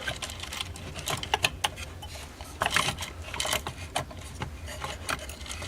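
Irregular light clicks and rattles of a cuckoo clock's small metal parts being handled as the movement is worked loose, with a few brief rustling scrapes around the middle and a steady low hum underneath.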